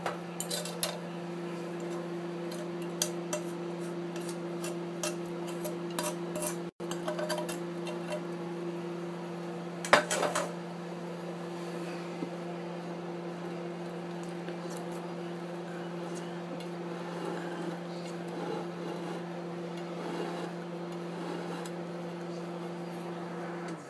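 Steady electric hum of a motor turning a plate of food, with light clinks of the plate and cutlery in the first few seconds and a louder clatter about ten seconds in.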